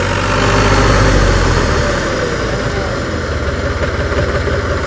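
HMT 3511 tractor's diesel engine running steadily under load while it pulls a working 7-foot Punni super seeder through paddy stubble, with a dense mechanical rushing over the engine drone. The engine swells a little about a second in, then settles.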